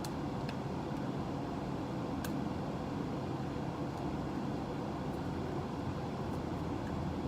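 Steady fan-like whir at an even level, with a few faint light clicks scattered through it.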